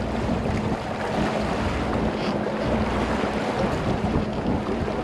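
Fishing boat's engine humming steadily at trolling speed, under wind noise on the microphone and water washing past the hull.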